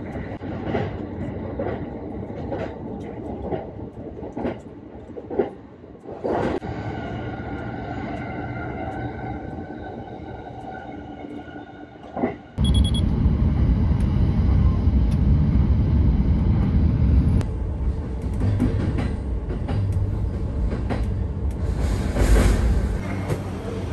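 Electric train running on the rails, heard inside the passenger carriage: a steady rumble with occasional knocks. About halfway through it suddenly becomes louder and deeper.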